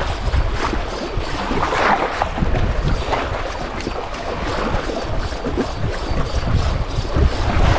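Wind buffeting the microphone and waves washing against shore rocks, with a spinning reel being cranked to bring in a hooked fish.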